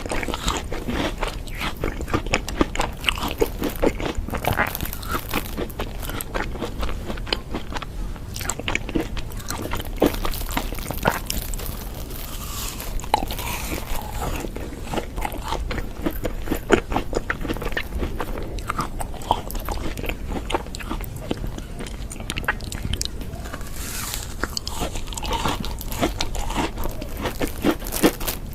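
Crunchy food being bitten and chewed: a dense, irregular run of crisp crackles and mouth sounds.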